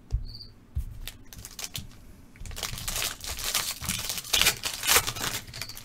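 Trading-card pack wrapper being handled and torn open, a run of crinkling and rustling that starts about halfway through, after a few light clicks of handling.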